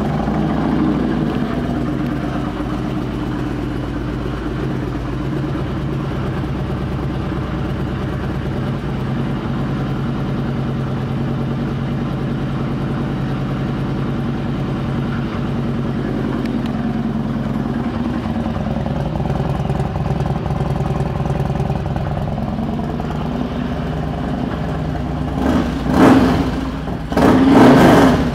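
2000 Harley-Davidson Electra Glide Ultra Classic's V-twin, running through a 2-into-1 Vance & Hines exhaust, idling steadily just after a start. Near the end the throttle is blipped twice, the second rev longer than the first.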